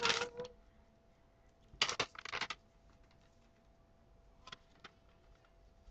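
A hummed note trails off at the start, then a short burst of rapid clicking and rustling about two seconds in, and two faint clicks later; otherwise the room is quiet.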